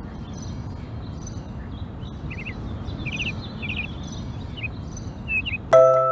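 Outdoor ambience: a steady rushing background noise with small birds giving short, quick chirps and twitters, several in a row about two to four seconds in. About half a second before the end, glockenspiel-like mallet music comes in loudly.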